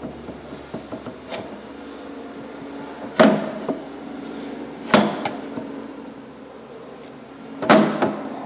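Metal parts of an Ammco 4000 brake lathe's spindle assembly handled and fitted by hand: a few sharp metallic knocks and clacks with a short ring after them. The loudest come about three and five seconds in, with a cluster near the end.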